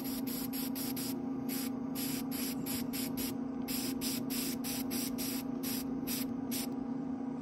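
Airbrush spraying paint in many short hissing bursts, several a second, as the trigger is pressed and released, stopping near the end. A steady low hum runs underneath.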